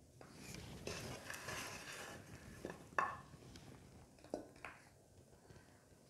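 A serving spoon scraping on a ceramic plate as sticky, jaggery-coated gavvalu are pushed off it, then a few sharp clinks of spoon on plate, the loudest about three seconds in.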